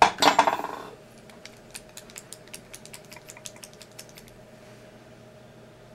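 Conductive-ink pen being handled: a short rustle, then quick light clicks, about six a second, for some three seconds.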